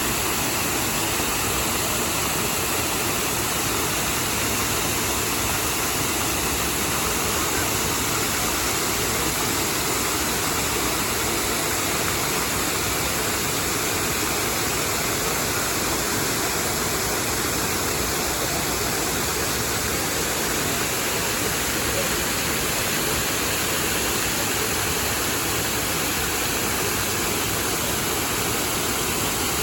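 Nabegataki waterfall's water falling, a steady, even rush of noise with no change in level.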